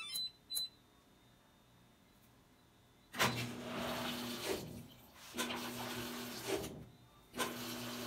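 Mabe top-loading washing machine starting up: a short run of electronic beeps and clicks right at the start as the program dial is turned. Then, from about three seconds in, three surges of churning noise with a steady low hum, each about a second long and two seconds apart, as the machine begins its wash cycle.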